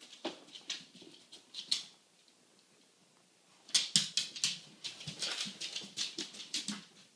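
Dog's claws clicking and tapping on a tiled floor as a Labrador walks: a few light clicks in the first two seconds, then a quick, busy run of clicks from about four seconds in until near the end.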